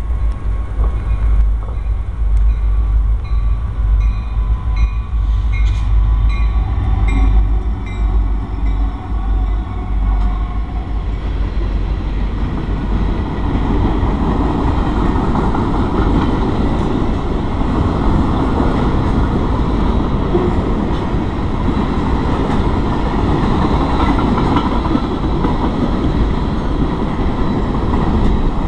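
Canadian National freight train rolling through a grade crossing with a steady low rumble. Over the first several seconds a crossing bell rings in regular strikes, about two a second. From about twelve seconds in, the rolling noise of the cars' wheels grows louder.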